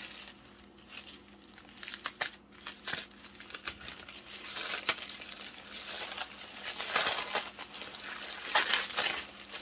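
Packing paper being unwrapped and crumpled by hand, with irregular rustling and crinkling that grows busier and louder about halfway through.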